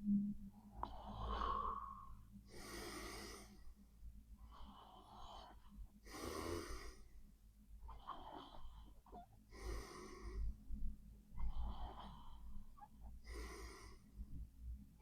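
A sleeping person snoring: louder, raspy breaths alternate with softer ones, a full breath cycle about every three and a half seconds.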